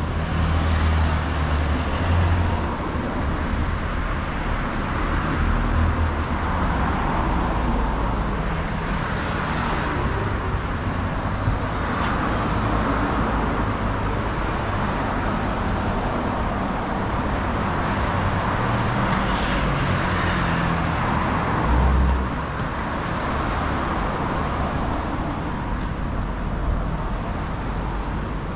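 City road traffic: a steady hum of tyres and engines, with cars passing one after another, each swelling and fading over a few seconds.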